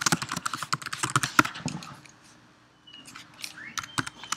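Computer keyboard typing, a quick run of keystrokes over the first couple of seconds, then a few scattered clicks.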